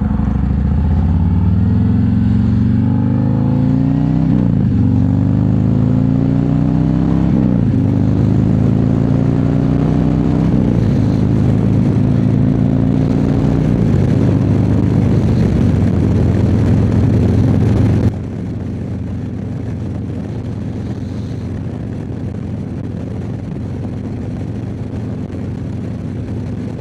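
Harley-Davidson touring bagger's V-twin engine accelerating up through four gear shifts, each shift a drop in pitch before it climbs again, then holding steady. About two-thirds of the way through, the throttle closes abruptly and the engine note falls away, leaving mostly wind and road noise, heard from a mic inside the rider's helmet.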